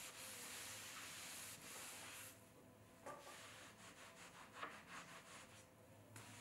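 Faint rubbing of a damp sponge wiping down the wooden wheel table and the spinning wheel head, with a run of short scrubbing strokes in the second half.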